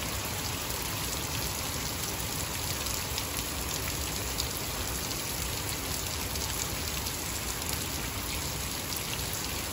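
Heavy rain falling steadily onto a waterlogged lawn and its puddles: an even hiss with many small, sharp drop splashes through it.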